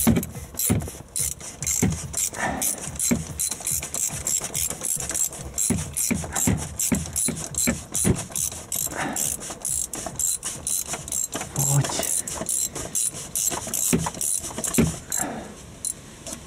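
Ratchet wrench on a long extension clicking in quick repeated strokes as a fastener is turned; the clicking stops shortly before the end.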